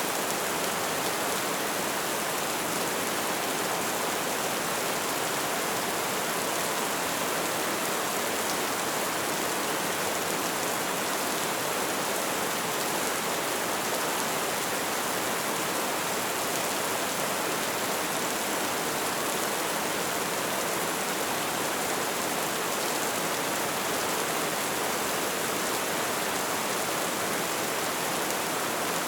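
Light rain falling in a steady, even hiss with no distinct drops standing out.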